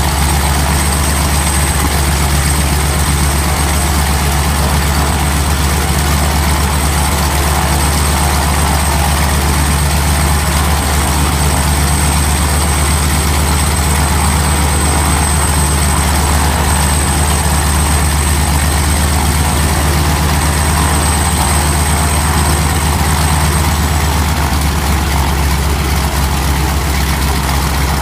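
Pratt & Whitney R-985 nine-cylinder radial engine running steadily at idle, propeller turning: a ground test run after a blown cylinder has been replaced.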